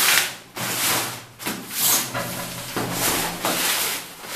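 Red nylon carry bag rustling and swishing as the folded playard is pushed into it and the fabric is handled, in several separate swishes.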